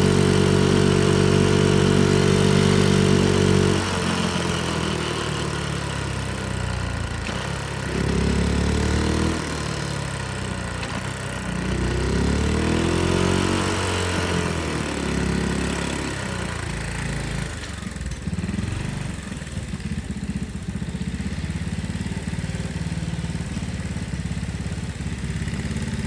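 Honda Monkey minibike's single-cylinder four-stroke engine running freshly after a valve adjustment: held at a steady speed for about four seconds, then easing off, rising and falling twice, and settling into a steady idle for the last several seconds.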